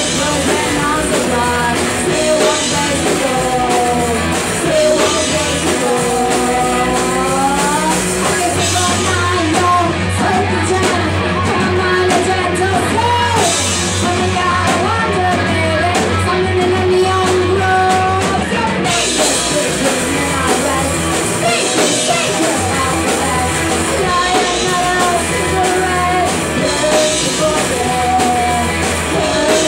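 A rock band playing live: electric guitars, bass and drum kit, with a lead singer. Around nine seconds in the bass grows heavier, and about ten seconds later the brighter top end returns.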